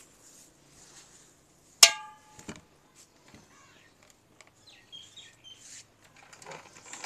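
Wooden charpoy (rope-woven cot) set down on its legs: one sharp knock with a short ringing tail about two seconds in, a smaller knock just after, then light knocks and rustles as the webbing is straightened.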